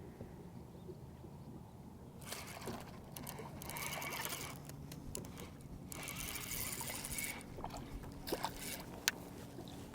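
Water trickling and splashing in two bursts of a second or so each, with a few sharp knocks near the end.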